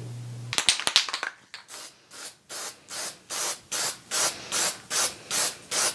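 A few quick clicks, then rhythmic back-and-forth rubbing strokes by hand, about two and a half a second, each a short hiss that swells and fades.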